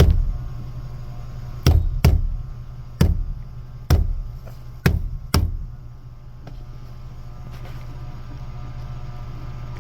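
Six sharp knocks of something striking the fuel tank where the fuel pump sits, a check on a whining fuel pump, over the steady low hum of the 2008 Mazda 3 running. The knocks stop about five and a half seconds in.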